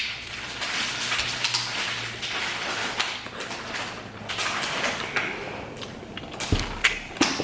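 Close-miked eating sounds: chewing a Chipotle burrito with wet, crackly mouth noises, and a few sharp clicks near the end.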